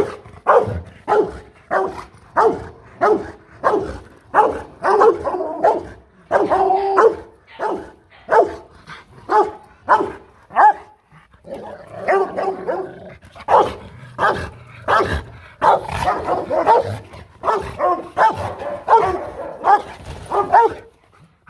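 Rottweilers threat-barking at each other: deep, loud barks, about two a second, breaking off briefly about eleven seconds in, then coming faster and running together in the second half.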